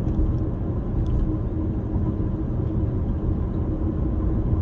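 Steady low rumble of a car driving, heard from inside the cabin: engine and road noise with a faint steady hum.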